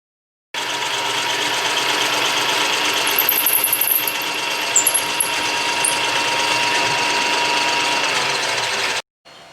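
Metalworking machine tool running steadily with a constant whine. It starts abruptly about half a second in and cuts off suddenly near the end.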